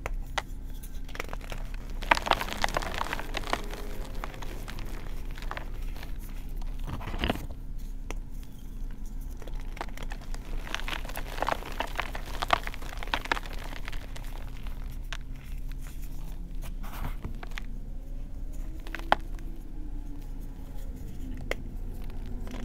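Blocks of reformed gym chalk crushed and crumbled between the fingers, giving irregular dry crunches and crackles as the pressed chunks break down into soft powder.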